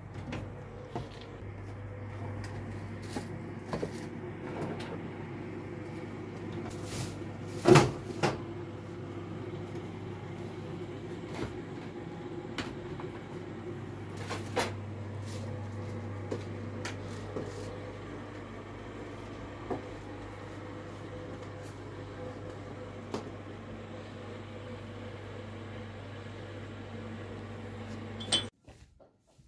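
Household handling sounds: scattered knocks and clicks of plastic kitchenware and cupboard doors being moved and set down, the loudest two close together about eight seconds in, over a steady low hum. The sound drops away suddenly near the end.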